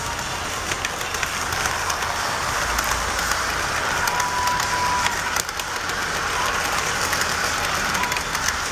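HO scale model commuter train running past close by: a steady rolling whir of wheels and motor on the track, with many quick clicks from the wheels crossing rail joints. A brief steady tone sounds about four seconds in.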